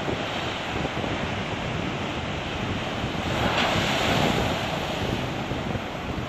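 Surf breaking and washing over rocks, one wave crashing louder about three and a half seconds in, with wind buffeting the microphone.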